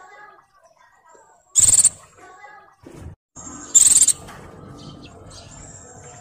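White-eye (pleci), a female in breeding condition, giving two short, shrill, high-pitched calls about two seconds apart, with softer chattering between them.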